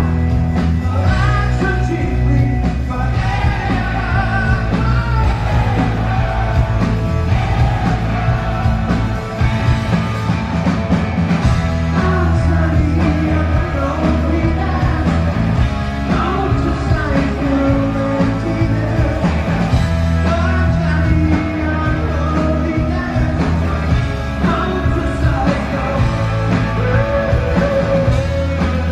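A rock band playing live, with an electric guitar, bass and a male lead vocal, loud and steady, heard from the audience.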